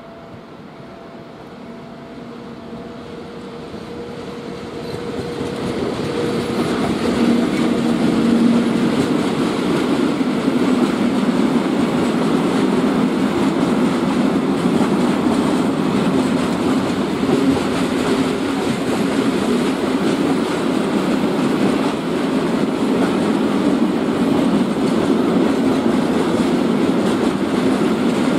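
Freight train approaching and passing: the locomotive comes on, growing louder over the first several seconds, then a long train of open-top freight wagons rolls by with a steady rumble of wheels on the rails.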